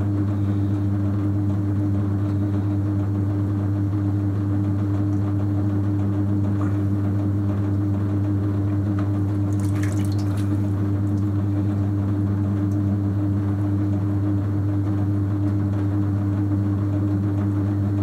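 Electric potter's wheel running at a steady speed, an even motor hum, with faint wet sounds of hands working the spinning clay.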